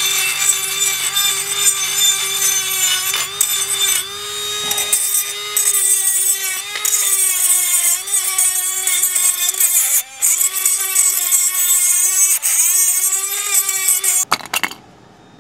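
Handheld rotary tool with a small cutoff wheel grinding rust out of the pad slots of a rusty brake caliper bracket, cleaning them for new pads. The motor gives a steady high whine with gritty grinding over it, and the pitch dips briefly each time the wheel bites. It switches off shortly before the end.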